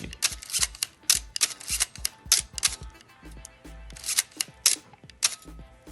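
Canon AE-1 Program 35mm SLR shutter fired again and again, a quick uneven series of sharp mechanical clicks. The shutter is slightly noisy, a very common problem with the AE-1 series.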